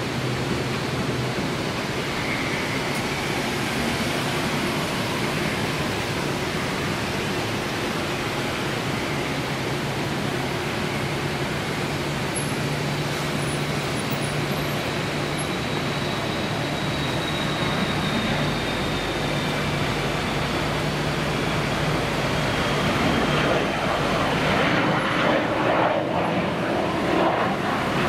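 Business jet's engines at takeoff power during the takeoff roll and climb-out: a steady rushing roar with a faint high turbine whine that slides slowly down in pitch, growing louder over the last few seconds.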